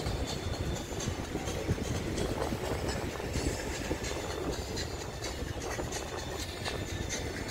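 Outdoor city ambience: a steady low rumble of road traffic with scattered irregular clicks and knocks.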